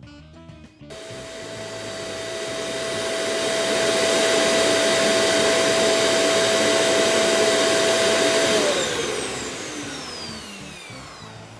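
Neabot NoMo self-emptying dock's suction motor emptying the robot vacuum's dustbin. It starts suddenly about a second in as a loud steady whine and grows louder over the next few seconds. Near the end it spins down, its pitch falling.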